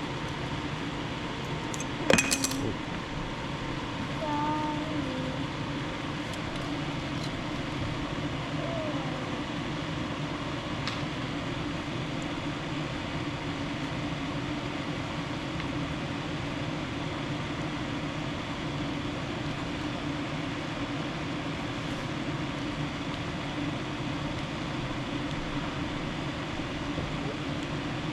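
Steady background hum and hiss, like a fan or air conditioner running, with one brief clatter about two seconds in.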